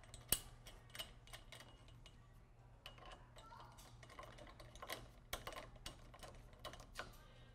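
Light, irregular metallic clicks and ticks of a nut, bolt and hex driver against a small aluminium mirror clamp as the bolt is fitted and started in. The sharpest click comes just after the start, and they come thicker from about three seconds in.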